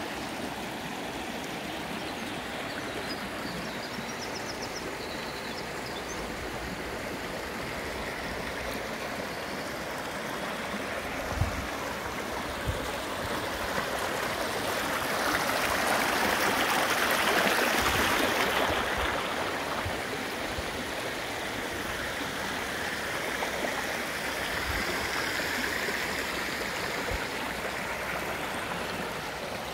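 Shallow creek water running over flat rock ledges and small riffles, growing louder for several seconds around the middle. A few soft low thumps show up along the way.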